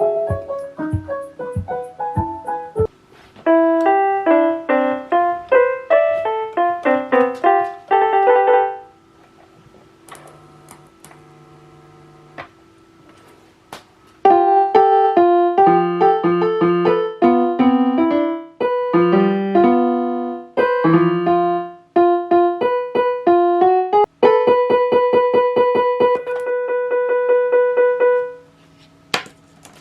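Solo piano music: a quick, light classical-style piece played in runs of notes. It drops to a faint held tone for about five seconds in the middle, then picks up again and stops shortly before the end.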